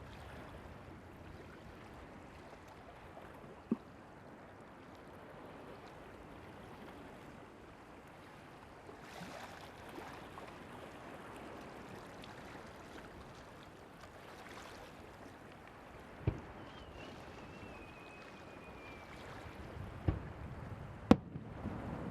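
Fireworks shells bursting over the sea: four sharp bangs spread apart, the last two close together near the end and the loudest, with a thin whistle sliding down in pitch midway. Steady wind and surf noise lies beneath.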